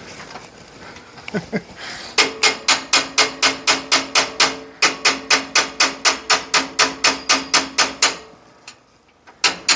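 A small hammer tapping a metal rod in a Brunswick A2 pinsetter's turret mechanism to drive it down for adjustment. It strikes rapidly and evenly, about four taps a second for some six seconds, with the struck metal ringing, and gives two more taps near the end.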